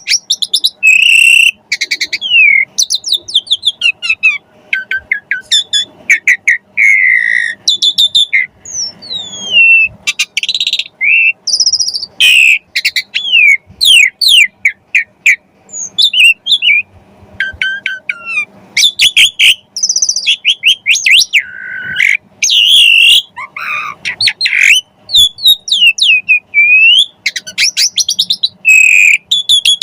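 Asian pied starling singing a long, varied song of rapid chirps, sweeping whistles and harsh squawky notes. The song is full of phrases mimicked from other birds.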